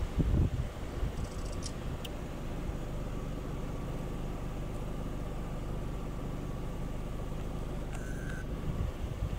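Steady low outdoor rumble, with wind buffeting the microphone in the first half-second. There are two brief faint high chirps, one about a second and a half in and one near the end.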